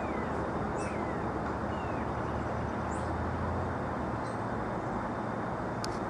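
Steady rumbling running noise of a vehicle, with a low hum underneath. A few short high chirps and falling squeaks come through it about once a second.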